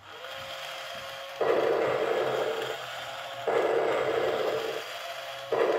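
Toy Biz remote-control T. rex working: its motor and gearbox run with a steady thin whine, broken about every two seconds by a loud, noisy footstep sound effect from its speaker, each lasting about a second, three in all.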